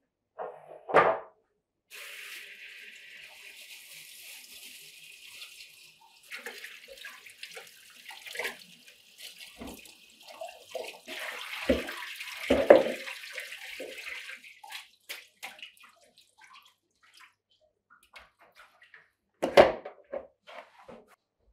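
Kitchen tap running into a plastic colander in a stainless-steel sink as food is rinsed by hand, the water stopping about two thirds of the way through. Sharp knocks of plastic bowls and colanders being handled and set down in the sink, the loudest near the start, the middle and the end.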